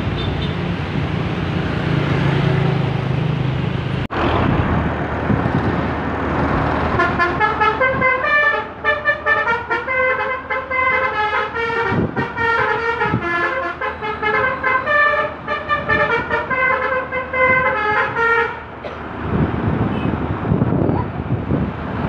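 Traffic and engine noise, then a coach's Basuri telolet horn plays a quick tune of short, stepping pitched notes for about ten seconds before stopping.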